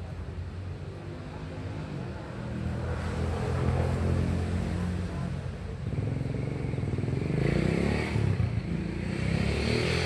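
Motorcycle engines passing on the street. One swells louder from about three seconds in, and a second rises in pitch and grows louder in the last few seconds.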